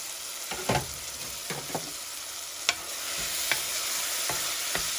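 Diced tomatoes and onions sautéing in a pot: a steady sizzle, a little louder about three seconds in, with a wooden spatula stirring and knocking against the pot several times.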